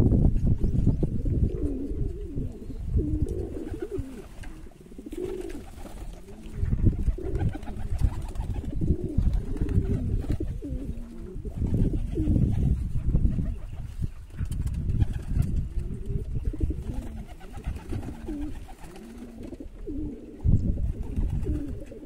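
Racing pigeons cooing again and again, low-pitched calls that rise and fall, over a steady low rumble.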